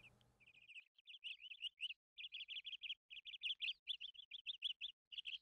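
Small birds chirping: quick runs of short, high chirps, several a second, broken by brief pauses, starting about half a second in.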